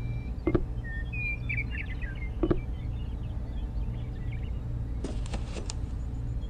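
Small birds chirping over a steady low hum, with two light taps as miniature clay brick wall pieces are set down, and a brief rustle near the end as the roof piece is handled.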